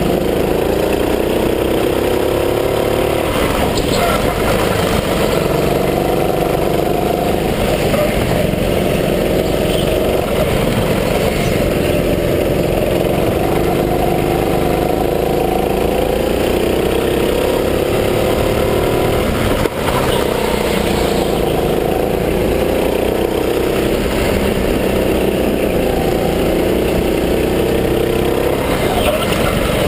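Gas-powered go-kart engines running at racing speed, the revs rising and falling again and again as the karts accelerate out of corners and slow into them.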